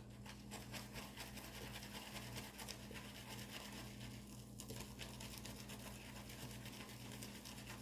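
Faint, steady scratchy swishing of a shaving brush working soap into lather in a shave bowl.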